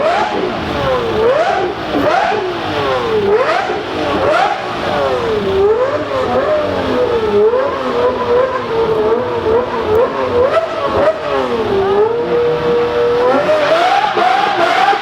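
Supercar engine being revved, its pitch rising and falling again and again, then holding steady for a moment before climbing once more near the end.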